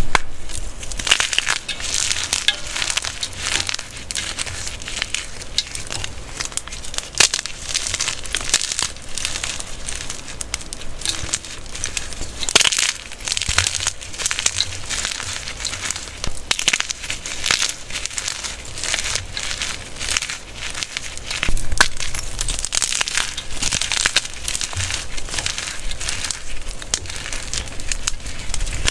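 Blocks of glittery, pink-dyed gym chalk being crushed and crumbled by hand. The chalk gives a dense, continuous crunching and crackling that swells in waves every second or two as the hands squeeze.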